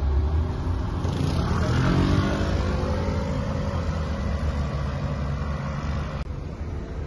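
Street traffic: a vehicle engine running over a steady low rumble, rising in pitch as it accelerates between about one and two and a half seconds in.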